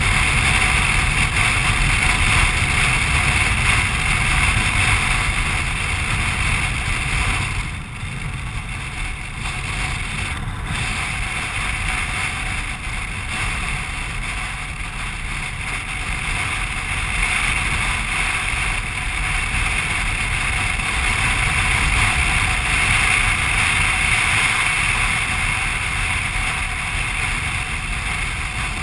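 Steady wind rush and running noise of a BMW R1200RT's flat-twin engine and tyres at road speed, heard from the rider's seat. The level drops briefly about eight seconds in, then holds steady.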